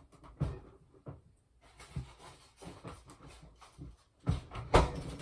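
Scattered knocks and thumps from neighbourhood construction work, heard from inside the house, with a louder burst of clattering about four seconds in.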